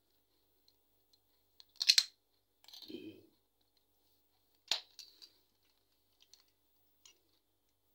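Clicks and clacks of a metal motorcycle phone holder being handled as the phone is taken out of its clamp arms and laid down. A loud clack comes about two seconds in, then a short rattle, a sharp click near five seconds, and a few small ticks after.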